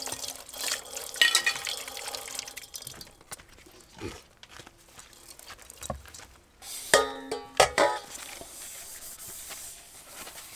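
Water running from a plastic jug's spigot and splashing into a metal pot while camp dishes are rinsed and scrubbed. Past the middle come a few sharp clanks of the metal pots, which ring briefly.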